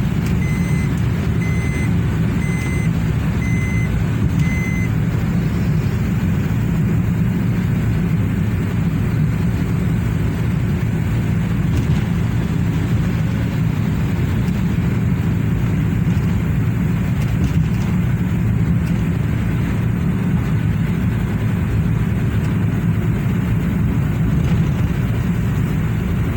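Steady in-cabin drone of a Honda N-WGN's three-cylinder engine and road noise while driving, the engine running smoothly now that a shorted number-three coil and all three spark plugs have been replaced. Over the first five seconds, five short electronic beeps sound about a second apart.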